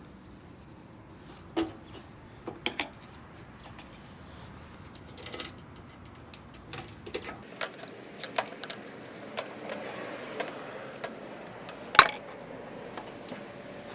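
Scattered metallic clinks and taps of tools on a stuck drive sprocket being worked off a rear axle, a few at first and then a quicker run of them, with one sharp loud clank about twelve seconds in.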